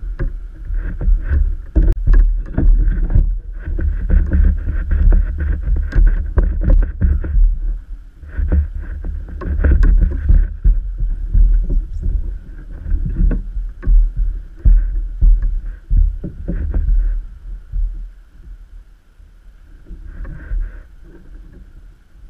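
A kayak moving over the water: heavy, irregular low rumbling buffets the microphone, and water splashes and knocks against the hull. A faint steady hum sits under it. It all eases off in the last few seconds.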